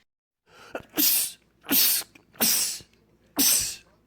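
A man sneezing four times in quick succession, the first about a second in, each sneeze a short sharp burst.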